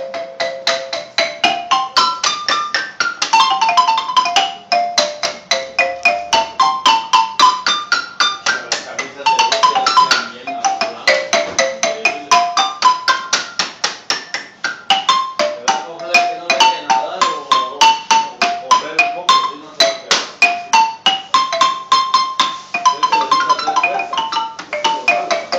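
Small tabletop marimba with wooden bars, played with two mallets in quick strokes of about five notes a second. The notes run in sweeping scales down and back up in pitch.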